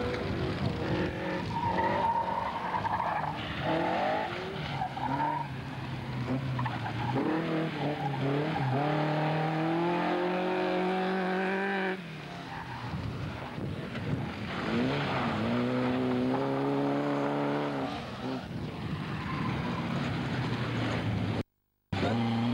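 Rally car engines revving hard, their pitch climbing and dropping through gear changes as several cars in turn slide past on a loose gravel course, with the hiss of tyres scrabbling on the gravel. The sound cuts out briefly near the end.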